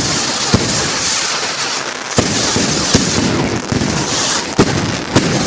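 Display fireworks going off: continuous crackling and fizzing from the bursting shells, broken by about five sharp bangs a second or so apart.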